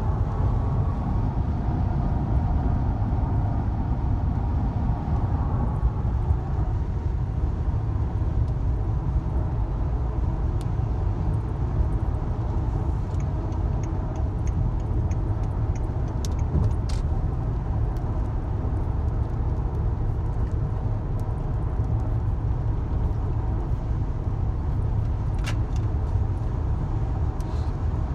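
Steady road and engine rumble inside a moving car's cabin, with a few faint light clicks about halfway through and once more near the end.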